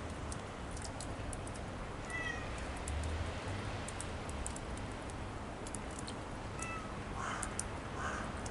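A domestic cat gives two short meows about four and a half seconds apart, each falling slightly in pitch. Faint high ticks run throughout, and a few soft, evenly spaced scuffs come near the end.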